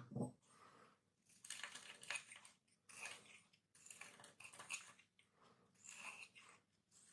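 Knife blade shaving a hard bar of Lux soap, dry flakes scraping and crumbling off in a series of short strokes about one a second, with a low thump at the very start.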